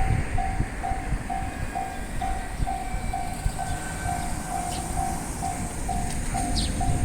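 Railway level-crossing alarm ringing, a repeating bell-like tone a little over twice a second, over the low rumble of a train passing through the crossing.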